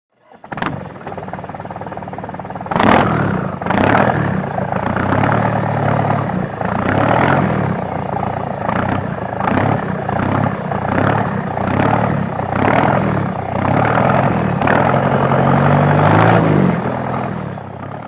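A vehicle engine revving repeatedly, its pitch rising and falling, starting about half a second in and getting louder at about three seconds.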